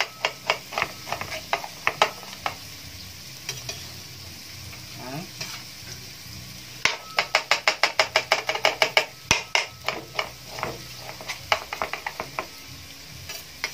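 Knife chopping a red onion on a cutting board in quick runs of about five to six strokes a second, with a pause of a few seconds in the middle. Chopped ginger sizzles steadily in oil in a frying pan underneath.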